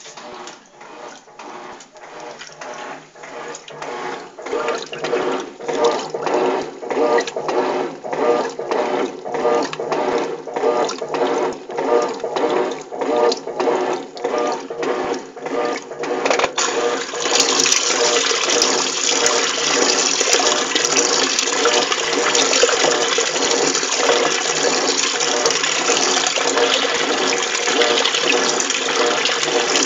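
Electrolux TOP6F top-loading washing machine agitating: water sloshes in rhythmic strokes about two to three a second, growing louder, then a little over halfway through a steady rush of water takes over.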